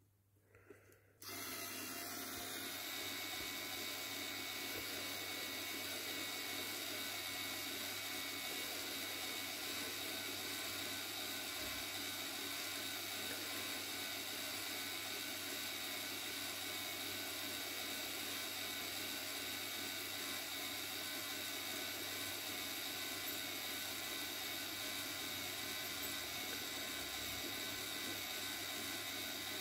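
Motor and plastic gears of a K'nex swing ride switching on about a second in and running steadily, a continuous whir with a steady whine as the swings spin fast.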